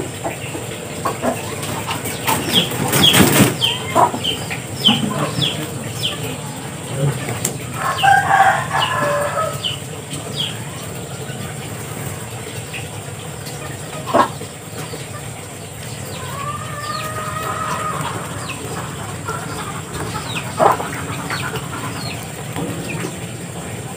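Muscovy ducks in a pen: runs of short high chirps, a brief flurry of wing-flapping or splashing about three seconds in, and a couple of longer calls, over a steady low hum.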